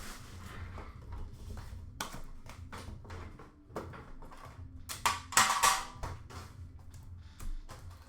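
A trading-card tin and its contents being handled: a string of light clicks and taps, with a louder brief scraping rustle about five seconds in.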